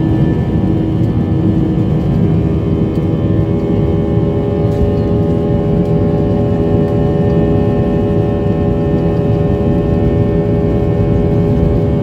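Jet airliner's underwing turbofan engines heard from inside the cabin while the plane taxis on the ground: a loud, steady rumble with a constant whine of several even tones.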